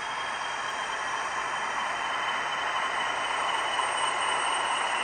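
Model locomotive running under power on the shelves' rolling road: a steady high whine over a hiss, getting slightly louder.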